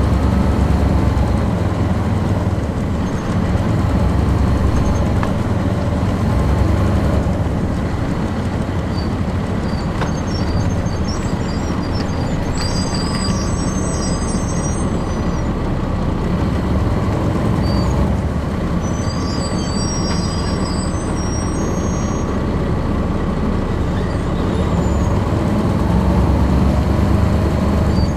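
Cummins C8.3 diesel engine of a Nova Bus RTS transit bus, heard from inside the passenger cabin, running steadily as a deep drone that swells a little now and then. Faint high squeaks or rattles come through several times.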